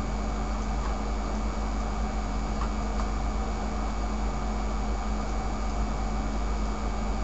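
Steady low hum and hiss of background noise with a constant tone in it, and a few faint clicks.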